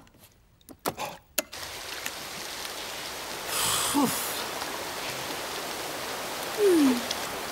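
Shower spray hissing steadily, starting about a second and a half in after a few light knocks. Two short falling voice sounds come over the water, one about four seconds in and a louder one near the end.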